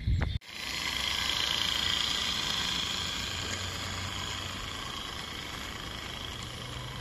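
Regner Class A Climax live-steam garden locomotive running, heard as a steady hiss with a faint low hum that slowly fades. It is preceded by a brief low rumble that cuts off abruptly about half a second in.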